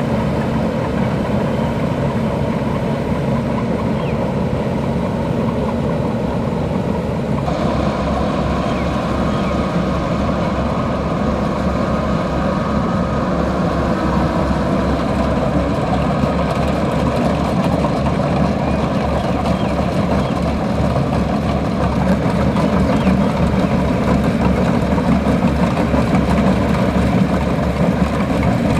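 Kubota DC-105X rice combine harvester's diesel engine and threshing machinery running steadily. The sound changes abruptly about seven seconds in and then settles into an even low throb.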